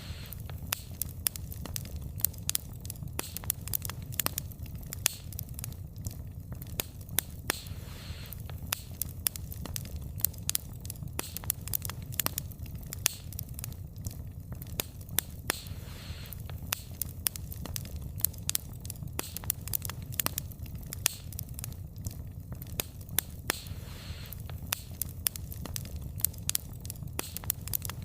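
Wood fire burning, with frequent sharp crackles and pops of the wood over a steady low rumble of the flames, and now and then a brief hiss.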